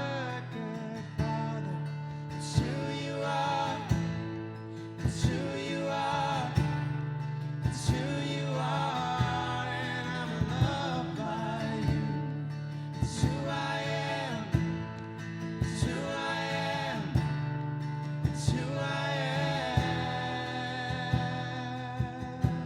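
A worship song sung by a solo voice over steady acoustic guitar strumming.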